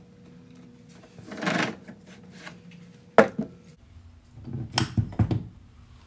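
Workshop handling noise at a cue lathe: a brief rustle, then a single sharp knock, then a quick run of knocks and clunks as hard parts and tools are moved and set down. A faint steady hum stops just after the knock.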